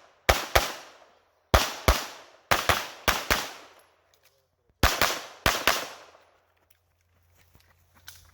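Pistol shots fired in quick pairs, about a dozen in all in four bursts over the first six seconds, from a USPSA Production-division handgun being fired through a stage.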